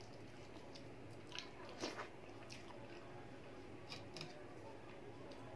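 Faint eating sounds: chewing, and fingers squishing dal and rice together on a plate, with a few sharp clicks and smacks at about one and a half to two and a half seconds and again around four seconds. A steady low hum runs underneath.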